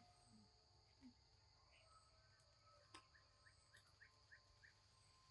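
Near silence: faint forest ambience with a steady high insect drone and a few faint bird-like chirps, including a short run of about five quick pips a little past halfway.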